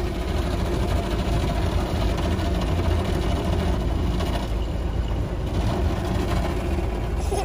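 Automatic car wash working over the car, heard from inside the closed cabin: a steady low rumble with a constant wash of water and brush noise.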